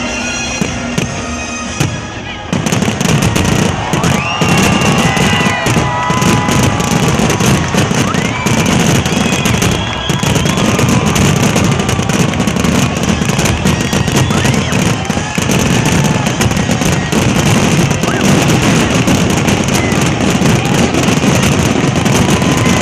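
Fireworks finale: a dense, rapid barrage of shells bursting and crackling, which thickens sharply about two and a half seconds in and goes on without a break, with music playing behind it.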